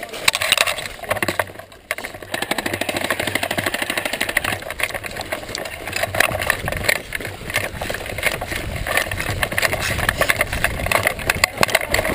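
Handling noise picked up by a camera mounted on an airsoft M249 as it is carried at a walk: continuous rattling and knocking of the gun and its mount, with footsteps, dropping away briefly about two seconds in.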